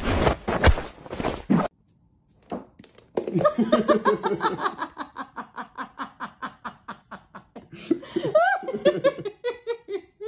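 A person laughing in a long run of quick pitched pulses that drift down in pitch, ending in a few sliding voiced sounds. Before it, a short burst of scuffling noise cuts off abruptly.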